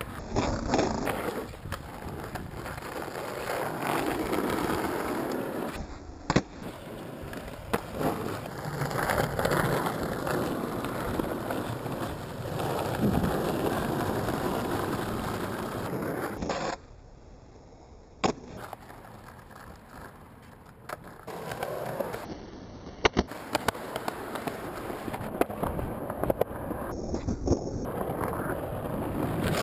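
Skateboard wheels rolling over asphalt and concrete with a steady rumble, broken by sharp clacks of the board striking the ground, several of them near the end. The rolling drops away briefly about two-thirds of the way through.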